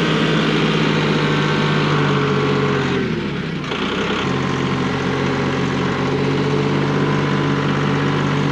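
Massey Ferguson tractor engine running steadily under way. About three seconds in the revs drop briefly, then pick back up about a second later.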